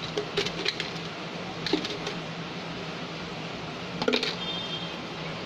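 Light clinks and knocks of kitchen utensils in three short clusters, the last followed by a brief high ring, over a steady low hum.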